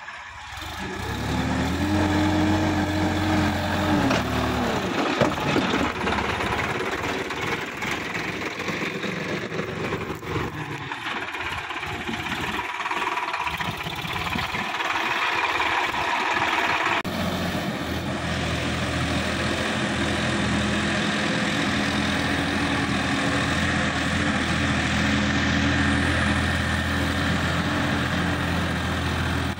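Sonalika DI-50 RX tractor's diesel engine running steadily, first driving close past on a road with its revs rising briefly near the start, then tilling a dry field with a rear rotary tiller after an abrupt cut about halfway through.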